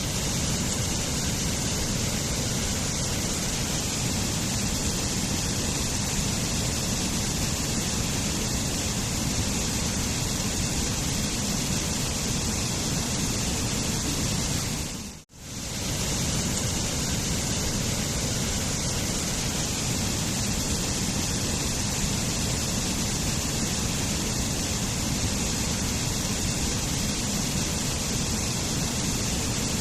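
Waterfall rushing in a steady, even roar of falling water. About halfway through it fades out for a moment and comes straight back in.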